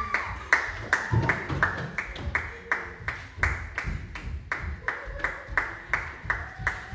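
Steady rhythmic percussive strikes, about three a second, each with a short ring.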